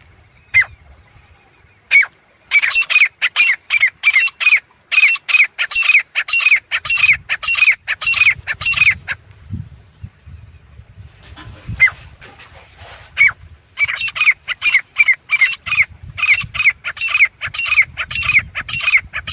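Teetar (francolin) calling: a loud series of short, ringing, downward-slurred notes repeated about three times a second, breaking off for a few seconds midway with only single notes, then resuming.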